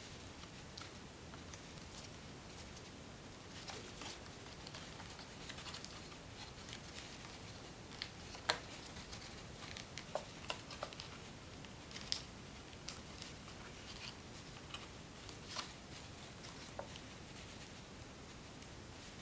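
Paper crinkling and crackling between the fingers as a narrow folded paper strip is pinched and creased. Soft, scattered crackles, with a few sharper ones in the middle.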